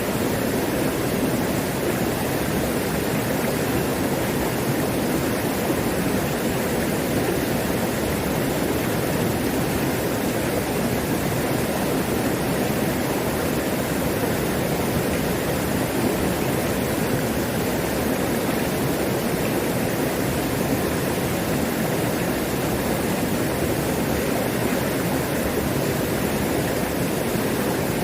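Mountain stream running full with plentiful water: a steady, unbroken rush of water.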